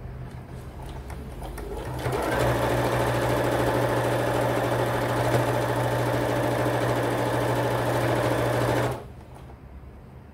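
Electric domestic sewing machine stitching a seam through layered cotton fabric strips: it starts slowly, then runs fast and steady for about seven seconds and stops suddenly near the end.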